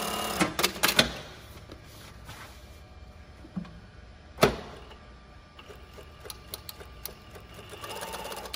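Brother Z-8560A direct-drive zigzag industrial sewing machine stops sewing right at the start, then gives a quick run of sharp mechanical clacks within the first second, the automatic thread trimmer and presser-foot lift working. The rest is mostly quiet, with scattered clicks and one sharp clack about four and a half seconds in. The machine's running sound comes back faintly near the end.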